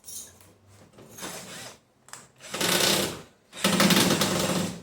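Electric drill-driver running in two short bursts, the second one longer, as it works a screw on the washing machine.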